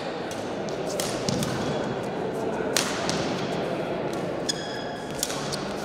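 Badminton rally: rackets striking a shuttlecock in sharp cracks every second or so, the loudest a little under three seconds in, with shoes squeaking on the court floor near the end, over a background of voices in the hall.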